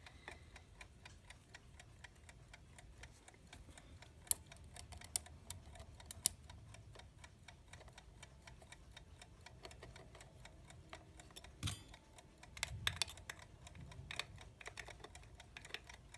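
The running movement of a vintage US Time Waterbury alarm clock ticking steadily and faintly, with a few louder clicks and knocks of the case parts being handled.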